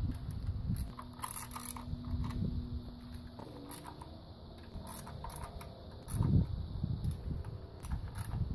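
Ratchet wrench clicking in short bursts as the socket tightens the timing chain cover bolts on a Toyota 1ZZ-FE engine, over low bumping rumble that is loudest about six seconds in.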